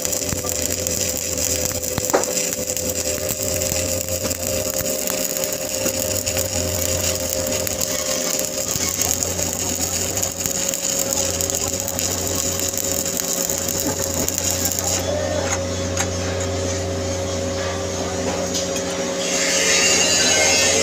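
Stick (shielded metal arc) welding on a carbon steel pipe joint: the arc's steady crackling hiss over a constant low hum, the hiss dropping away about three-quarters of the way through as the arc is broken.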